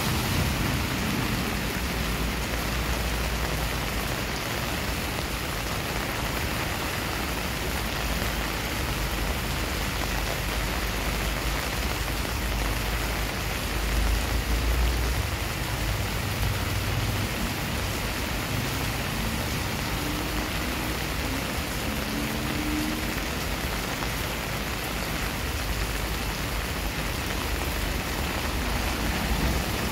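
Steady rain falling on a wet concrete driveway and garden foliage, splashing on the pavement. A brief low rumble comes about halfway through.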